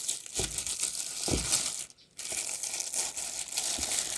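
Packaging being handled during an unboxing: plastic and paper wrapping crinkling and rustling, with two soft thumps in the first second and a half and a brief pause about two seconds in.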